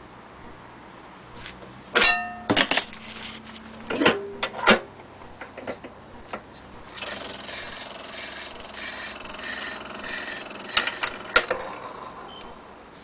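HMV portable gramophone being handled, with several metallic knocks and clatter, one of them briefly ringing. Then its clockwork spring motor runs with a steady whir as the turntable spins, with a few more clicks near the end.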